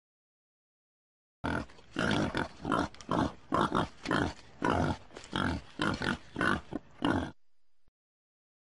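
Wild boar grunting in a rapid run of short grunts, about three a second, starting about a second and a half in and stopping about a second and a half before the end.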